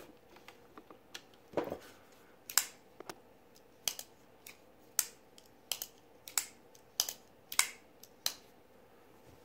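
Benchmade 710 axis-lock folding knife, freshly reassembled, being flicked open and shut over and over: a run of sharp clicks about one every two-thirds of a second as the blade snaps into lock and closes again. A duller knock comes a little earlier.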